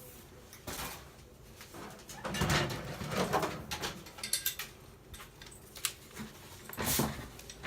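Scattered knocks, clicks and rustling from RC crawler axle parts and packaging being handled, picked up and set down.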